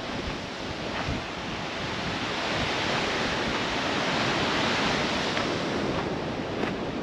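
Ocean surf: a wave breaks and washes in, the rush swelling to its loudest around the middle and then easing.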